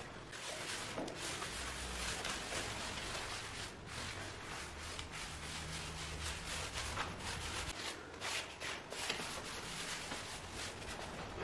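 A cloth rubbed by hand back and forth over a wooden parquet floor, scrubbing it clean in a steady run of short, quick rubbing strokes.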